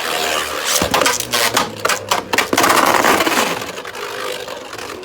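Two Beyblade spinning tops, a 3D-printed Agèma Ares and a metal-wheeled Guilty Longinus, whirring and clashing in a plastic stadium: a steady whir with a rapid run of sharp clacks from about a second in, easing off after about three seconds. The battle ends in a self knock-out.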